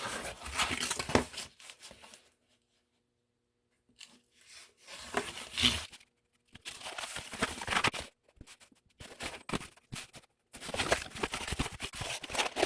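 A cardboard shipping box being handled and packed, with tearing and crinkling in irregular spells broken by a few short dead-silent gaps.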